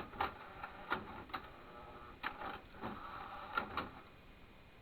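Buttons on a hi-fi stereo unit with a CD changer being pressed, a string of irregular plastic clicks.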